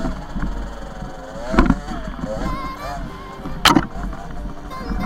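Small two-stroke dirt bike engine revving up and down, with two sharp knocks about one and a half and three and a half seconds in. Background music plays under it.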